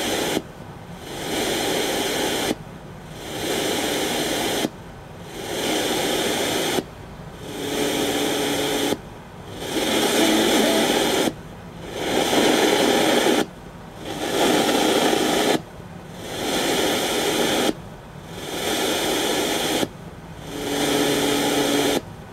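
Homemade RDA5807M FM radio receiver hissing with static between stations. The static cuts out for a moment about every two seconds and swells back in over about a second, typical of the tuner muting as it retunes to a new channel.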